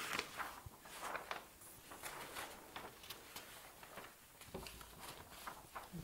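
Large flip-chart paper sheet rustling as it is lifted and turned over on its easel, in a run of small irregular crinkles.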